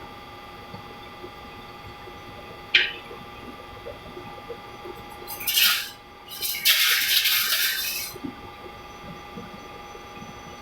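Press machine running with a steady hum of several constant tones. A short hiss comes about three seconds in, then two louder, longer hisses around five and a half and from six and a half to eight seconds.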